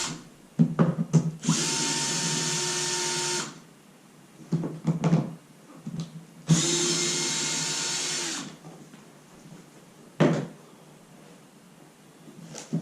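Cordless power drill/driver backing screws out of a wooden shipping crate: two runs of about two seconds each at a steady whine, the second spinning down at the end, with clicks and knocks of handling between.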